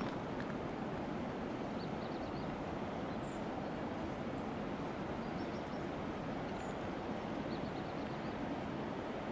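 A steady rushing noise with no change in level, and faint, short, high bird chirps and quick trills over it several times.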